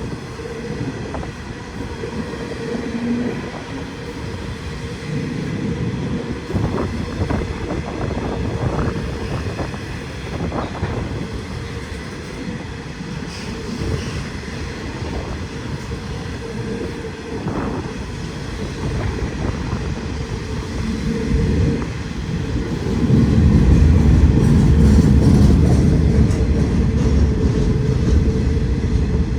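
Long freight train rolling past: a steady rumble with the wheels clacking over the rail joints, growing louder for the last several seconds.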